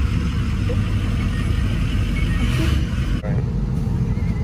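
Vehicle engine and road noise heard from inside the cab, a steady low rumble with hiss above it. About three seconds in, the sound changes abruptly to a duller rumble with less hiss.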